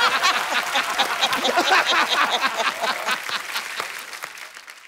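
Studio audience applauding with a patter of many hands, mixed with laughter at first, dying away near the end.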